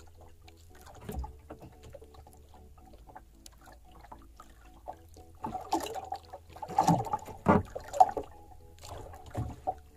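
Sea water sloshing against the hull of a small wooden outrigger boat, with a cluster of knocks and splashes in the second half as a sabiki hand line is worked over the side.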